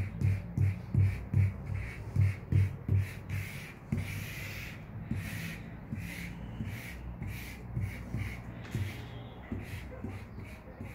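Background music with a steady low beat, about two and a half beats a second; the beat softens about four seconds in.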